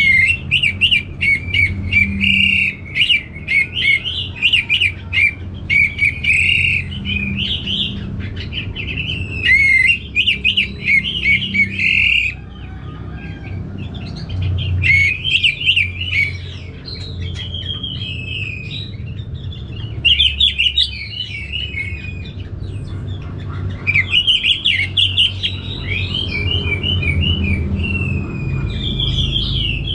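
Orange-headed thrush singing loud, rapid, varied warbling phrases in long bouts, with short breaks about midway and again about two thirds through.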